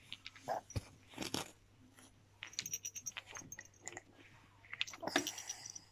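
Wooden and plastic bead toy clicking and clacking as a toddler handles it and mouths it, with a light high tinkling now and then.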